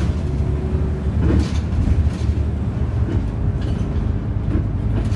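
Volvo B7RLE single-deck bus heard from inside the saloon while under way: a steady low drone from its six-cylinder diesel and the road, with scattered short rattles and knocks.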